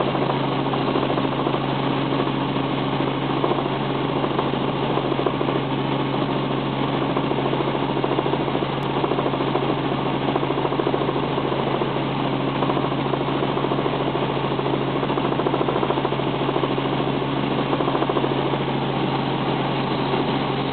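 Robinson R44 helicopter's six-cylinder piston engine and rotors running steadily in flight, heard inside the cabin: a constant drone with a low hum that holds one pitch throughout.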